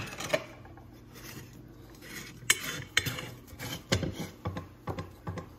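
Irregular clicks and knocks of a black aluminum extrusion and its mounting parts being handled and set down on a wooden tabletop, with a quieter stretch early on.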